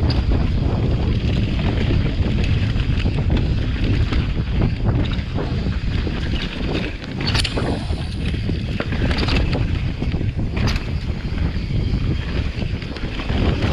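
Mountain bike riding down a dirt singletrack: wind rushing over the microphone, with the tyres rolling over dirt and dry leaves and the bike rattling over bumps. Sharp clatters stand out about seven and a half and ten and a half seconds in.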